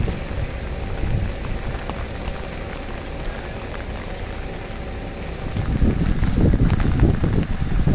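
Steady rain falling on wet street paving, with low rumbling gusts of wind buffeting the microphone, heaviest over the last couple of seconds.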